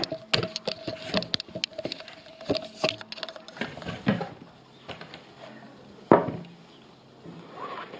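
Crafting work on a cutting board: a run of quick light clicks and taps for the first few seconds, then one sharp knock about six seconds in.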